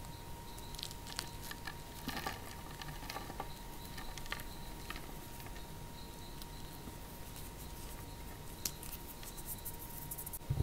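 A block of cornstarch being broken and crushed by hand into crumbs and powder: soft crunching and crackling in irregular bursts, busiest about two seconds in and again near the end.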